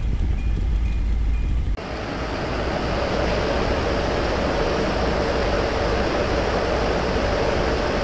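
Refrigerated truck box's ceiling evaporator unit running, its two fans giving a steady rushing hum inside the cold metal cargo box, which is holding −14 °C. Before that, for about the first two seconds, the truck's engine idles as a low rumble in the cab.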